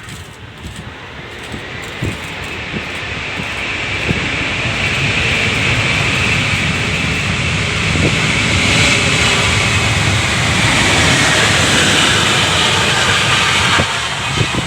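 Jet engine noise from an Ilyushin Il-76 cargo jet landing, its four turbofans growing louder over the first several seconds, then running loud and steady.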